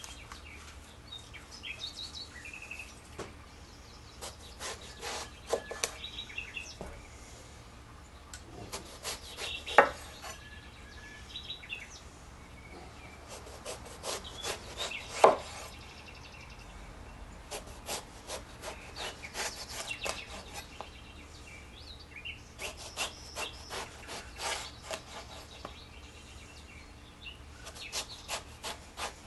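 Chef's knife slicing whole eggplants lengthwise into slabs on a wooden cutting board: crisp cuts through the firm flesh and taps of the blade on the board. Two sharp knocks stand out, about ten seconds in and again about fifteen seconds in.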